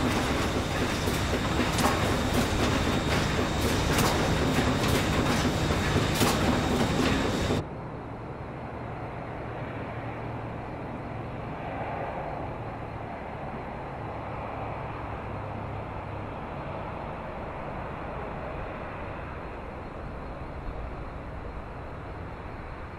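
Poultry processing line running, a dense machine din with frequent sharp metallic clicks and clatters. About seven and a half seconds in it cuts off abruptly to a much quieter steady low hum and hiss of the plant.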